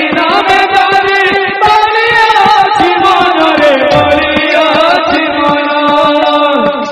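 Devotional kirtan music: long held, wavering sung notes over instrumental accompaniment, with frequent sharp percussion strikes.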